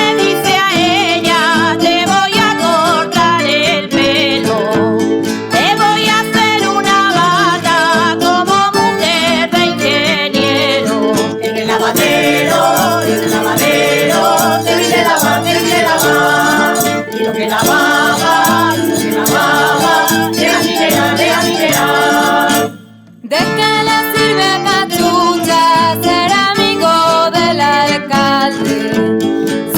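Traditional Extremaduran folk song: singing over strummed guitar accompaniment. The music breaks off for a moment about 23 seconds in, then carries on.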